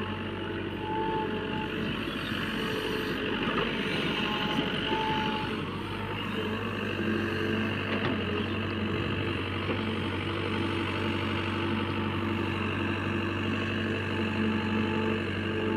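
Heavy diesel engine running steadily, with a reversing alarm giving short beeps every so often.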